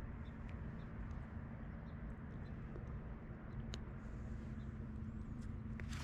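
Steady low outdoor rumble with a constant hum, with a few faint ticks and one faint high chirp about five seconds in.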